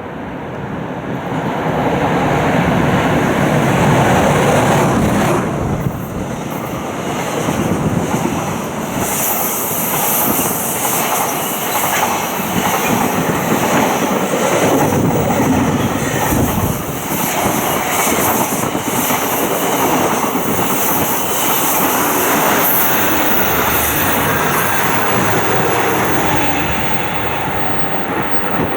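A train passing close by, its wheels running on the rails. The noise swells over the first two seconds and stays loud, with a higher hiss joining in about a third of the way through.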